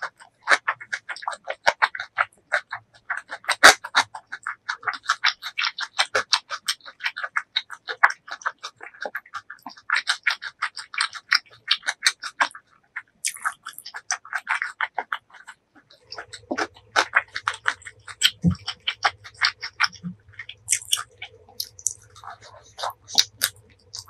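Close-miked chewing of a fresh Vietnamese shrimp spring roll in rice paper: a dense, continuous run of small mouth clicks. About two-thirds of the way in, a low steady hum comes in underneath.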